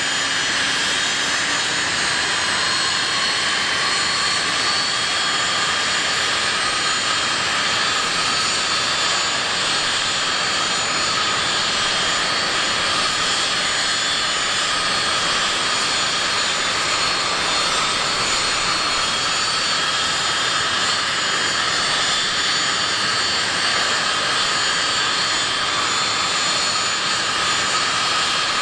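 Avro RJ85 turbines running steadily at ground idle: a constant high whine with several steady tones over an even rushing roar.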